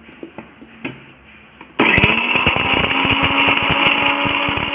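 Electric mixer grinder switched on about two seconds in, its motor running steadily as it coarse-grinds dried red chilli, coconut, shallots and salt dry, without water. A few light clicks come before it starts.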